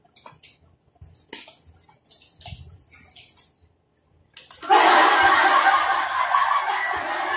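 Plastic shrink-wrap on a cardboard box being picked at by hand in short scratchy crackles. About four and a half seconds in it turns to loud, continuous crinkling and rustling as the wrapped box is handled.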